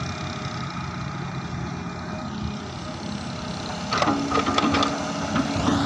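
Engine of heavy earth-moving machinery running steadily. About four seconds in, a steady higher tone and a quick run of clanks join it.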